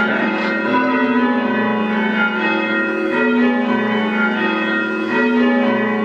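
A ring of eight church bells rung in changes from their ropes, strokes following one another in quick succession so that the tones overlap and keep sounding throughout.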